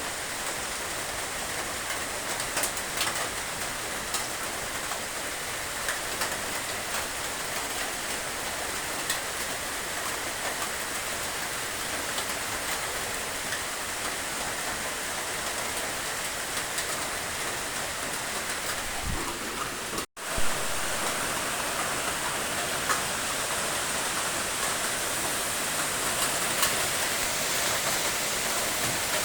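Steady rain falling: a dense, even hiss with scattered faint drop ticks. The sound cuts out for an instant about two-thirds of the way through, then comes back slightly louder.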